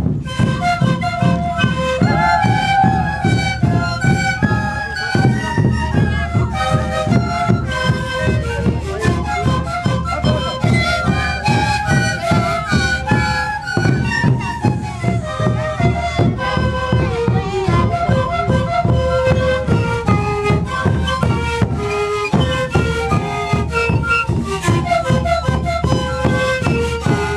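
Sikuri ensemble of siku panpipes (zampoña) playing a breathy melody together, over a steady beat of large bombo bass drums.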